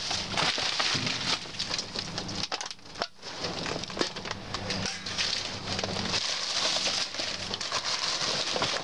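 Plastic bags and paper sacks of trash crinkling and rustling as a gloved hand rummages through a dumpster, a dense run of small crackles and snaps.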